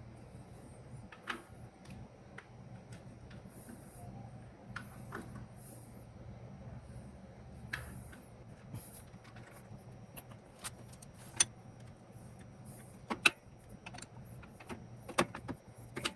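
Scattered, irregular metallic clicks and clinks of hand tools on metal while the wheel cylinder's mounting bolts are worked on, over a faint low steady hum.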